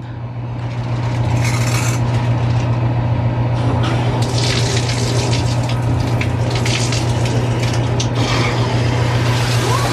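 Shower water turned on and running: an even rush of water through a new shower head onto tile, building over the first second, then steady, with a steady low hum beneath it.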